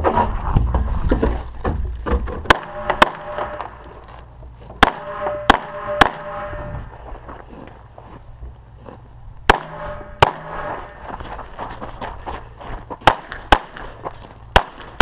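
9mm EAA/Tanfoglio Witness Elite Limited pistol firing about ten shots, mostly in quick pairs, with pauses of a few seconds between strings.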